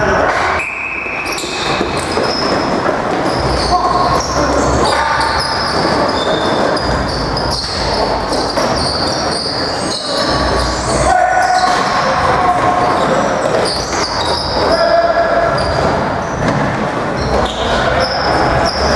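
Box lacrosse play echoing in an arena: shoes squeaking on the floor, sticks and ball knocking, and players calling out.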